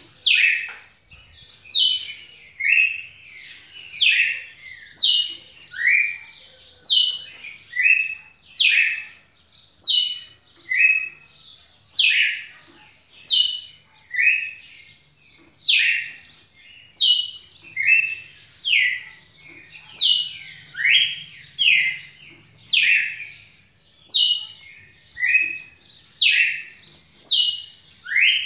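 Red-cowled cardinal (galo-de-campina) singing continuously: a steady run of loud, short whistled notes, about one and a half a second, some sliding up and some sliding down in pitch.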